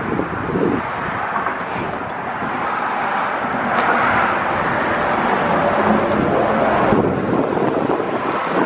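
Steady road and wind noise of a moving car, with wind buffeting the microphone.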